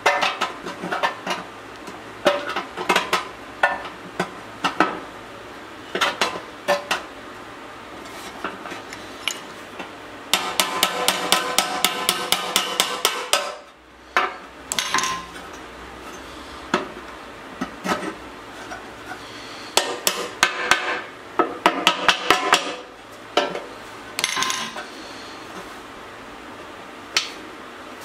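Small hammer tapping a tight-fitting steel patch into a cutout in a steel motorcycle petrol tank, metal-on-metal clinks as it is driven into place. Scattered single taps and knocks, with a quick run of taps about ten seconds in and another a little past twenty seconds.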